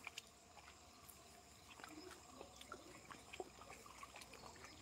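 Near silence: faint outdoor field ambience with a few soft scattered ticks and light water sounds from the flooded paddy.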